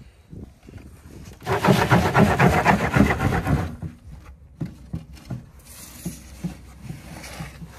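Homemade wooden sifter box with a wire-mesh screen being shaken back and forth, dirt and clods rattling across the mesh in a burst of quick, even shakes lasting about two seconds. After that come softer scattered knocks as the shaking eases.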